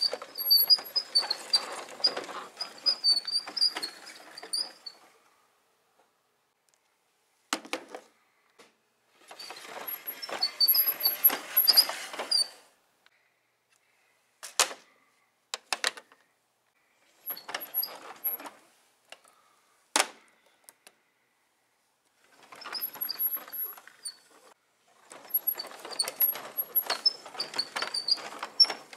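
Plastic toys being handled: a toy truck pushed along a play mat and action figures moved about and set on it. This comes as several bursts of rolling and rubbing a few seconds long, with short high squeaks, and a few sharp plastic clicks in between.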